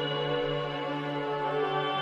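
Background music of slow, held chords. The chord changes near the end.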